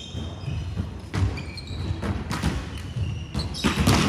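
A basketball bouncing on an indoor court: several sharp bounces at uneven spacing, the loudest near the end, with a few short high squeaks in between.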